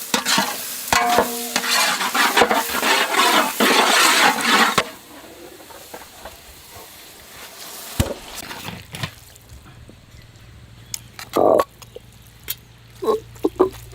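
Chopped onion, tomato, cashews and dried red chillies sizzling and crackling in hot sesame oil as they are stirred in a pan. It is loud for about the first five seconds, then drops to a much quieter sizzle with a few scattered knocks.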